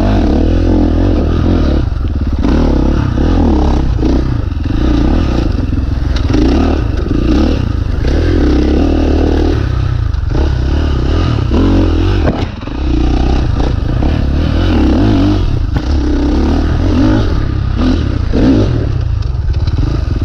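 2019 KTM 450 dirt bike's single-cylinder four-stroke engine running hard, revving up and down with the throttle on a trail ride, easing off briefly about twelve seconds in. Clatter and scraping from the bike over the rough trail run through it.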